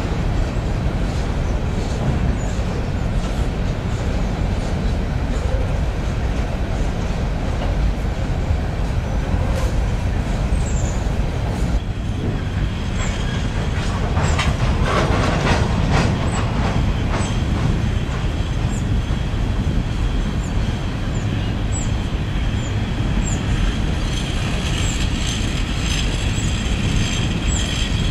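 Loaded coal train's hopper cars rolling slowly across a river bridge: a steady rumble with wheels clicking over rail joints. Faint high wheel squeal comes in near the end.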